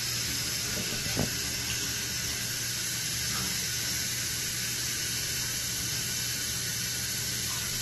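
Steady rush of running water, as from a tap or shower, in a small tiled room. There is one faint click about a second in.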